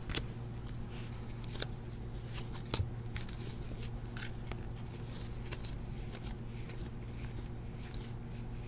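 Trading cards being handled and flipped through by hand: a few faint, scattered clicks and slides of card stock over a steady low hum.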